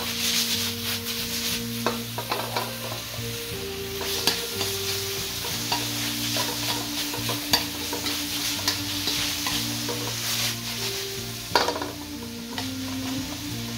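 Food sizzling in a hot pan while it is stirred, with frequent clicks and scrapes of a spatula against the pan.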